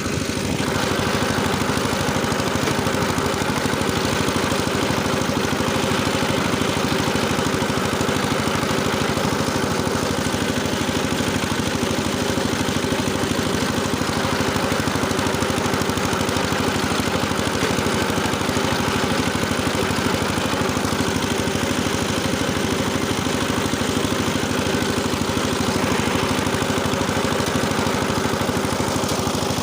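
Engine of a rotary tiller running steadily while it tills soil, an even drone with no changes in speed.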